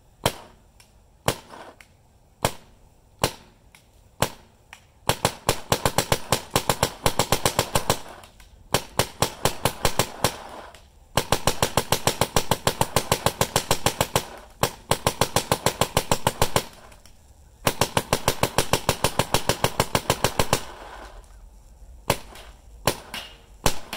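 Adrenalin Angel LCD electropneumatic paintball marker firing. A few single shots come about a second apart, then long strings of rapid, evenly spaced fire broken by short pauses, and scattered single shots again near the end.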